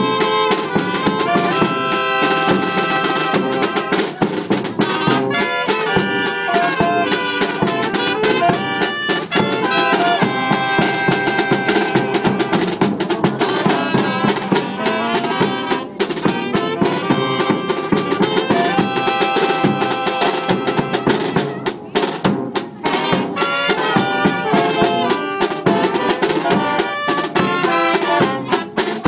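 Tamborazo band playing live: trumpets and saxophones carrying the melody over a tuba, with the snare drum and the big bass drum (tambora) keeping up a dense beat throughout.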